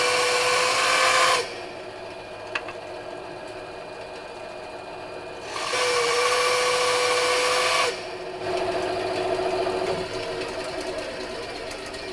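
Titan bandsaw running, its blade cutting twice through a 20 mm walnut blank: two loud cuts of about two seconds each with a steady whine, the motor running more quietly between them. A single sharp click about two and a half seconds in.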